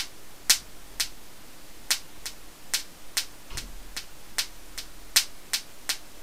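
Small high-voltage sparks snapping at the clip leads of a capacitor charged through two diodes from a bifilar pancake coil at resonance: about fifteen sharp snaps at an irregular two or three a second. Each snap is the capacitor discharging across the gap before it charges up again.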